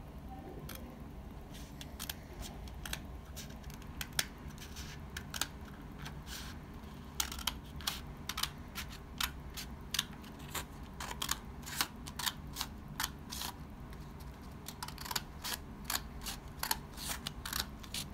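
Small scissors snipping through a sheet of paper: a run of sharp snips, only a few at first, then about two a second from about seven seconds in, a short pause, and another run near the end, over a low steady hum.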